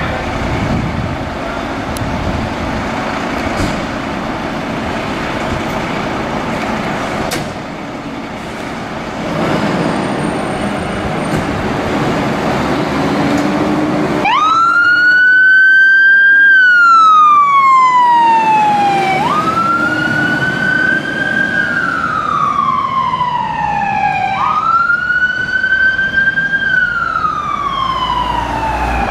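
Volvo FL fire engine's diesel engine running as it pulls out, then about halfway in its wail siren starts: a quick rise then a long falling sweep, repeating about every five seconds.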